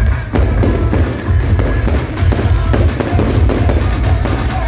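Aerial fireworks bursting overhead in quick succession, a dense run of bangs and crackle, with music playing alongside.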